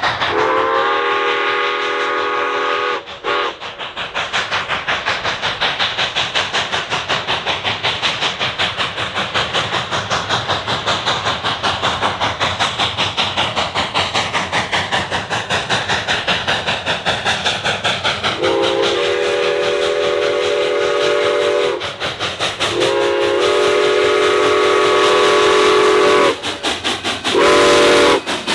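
Cumbres & Toltec K-36 No. 489, a narrow gauge 2-8-2 steam locomotive, working hard with a quick, even exhaust beat. Its chime steam whistle sounds one long blast about half a second in, then near the end two long blasts and a short one, the grade-crossing whistle pattern.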